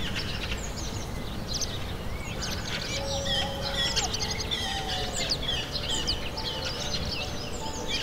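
Several songbirds chirping and singing at once, with many short, quick notes overlapping, over a low steady rumble.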